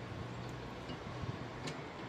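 A few faint, light clicks over a steady low background hum.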